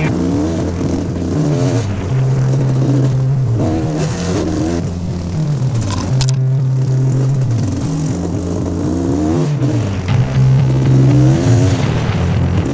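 Off-road motorcycle engine revving up and down, its pitch rising and falling several times while riding a trail.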